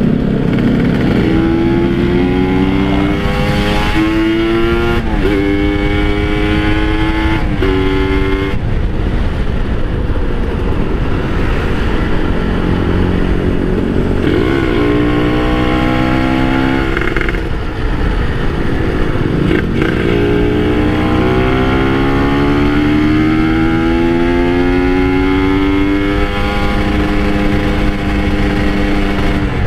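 Kawasaki Ninja 150 RR's single-cylinder two-stroke engine accelerating through the gears. Its pitch rises in repeated climbs that drop back at each gear change: quick short pulls over the first several seconds, then longer, slower climbs later on.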